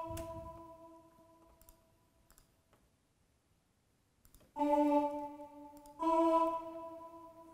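Single notes played back by notation software's piano sound as a melody note is selected and changed: an E ringing and fading, then a slightly lower note about four and a half seconds in, then the E again. A few faint clicks fall in between.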